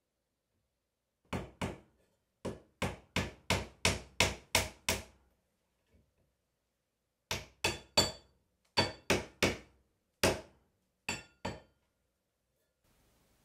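A hammer driving a nail into wood, about nineteen sharp strikes in bursts: a run of eight at about three a second, then shorter groups of two and three with pauses between. Some strikes ring faintly. It is the nailing-up of a horseshoe over a door.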